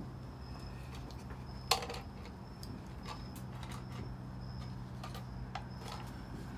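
A plastic cup knocking and tapping on a wooden table: one sharp knock about two seconds in, then a few lighter taps, over a steady low hum.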